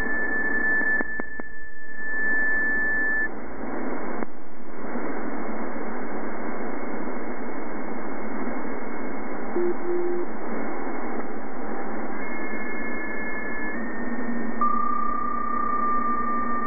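Shortwave receiver audio from an SDR tuned to the 20-metre PSK-31 frequency in upper sideband: a steady hiss of band noise with thin steady data tones of PSK-31 signals in it. One tone stops about three seconds in, and new tones come in during the last few seconds.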